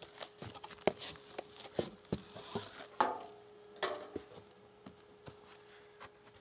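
Cardboard shipping box being opened and unpacked by hand: scattered taps and knocks of flaps and contents, with two longer scraping rustles of cardboard about three and four seconds in. A faint steady hum runs underneath.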